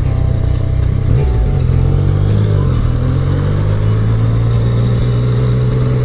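Motorcycle engine running at road speed with wind rushing past; its pitch rises about a second in and dips briefly near the middle before settling steady.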